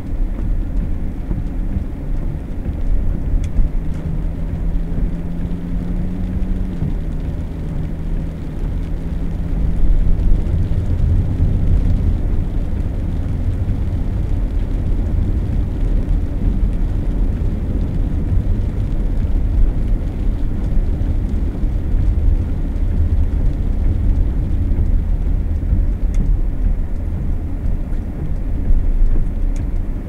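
Steady low engine and road rumble from inside a moving car. A low steady hum holds for several seconds in the first third, then stops.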